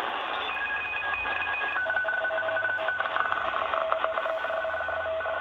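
Shortwave receiver in upper-sideband mode hissing with static, with a pair of steady whistling tones from a signal over the noise. About two seconds in, both tones step down in pitch as the tuning moves, then hold with small breaks. The signal is tentatively taken for a U.S. Air Force transmission.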